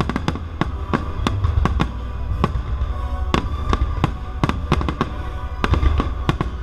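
Aerial firework shells bursting in quick, irregular succession, several sharp bangs a second over a deep rolling rumble. Orchestral music plays underneath.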